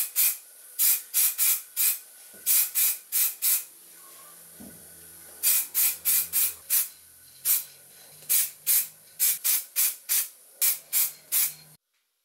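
Aerosol spray-paint can spraying in many short bursts, a quick hiss each, several a second in runs, misting black paint onto a small metal part. The spraying stops abruptly near the end.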